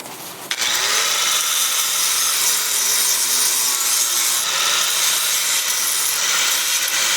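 Electric welding arc crackling and sizzling steadily, starting about half a second in.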